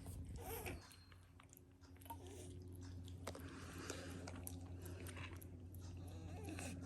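A tiny kitten chewing its food, with many small, irregular wet clicks of its mouth and teeth.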